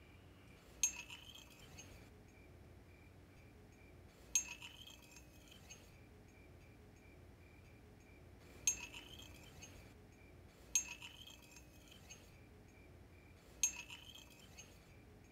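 Five sharp clinks spaced two to four seconds apart at an irregular pace, each with a short ringing tail, over a faint steady high-pitched tone.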